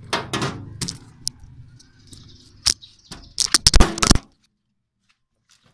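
Hand tools being handled around an engine bay: scattered metallic clinks and knocks, then a quick run of loud knocks about three and a half seconds in. The sound cuts off abruptly after that.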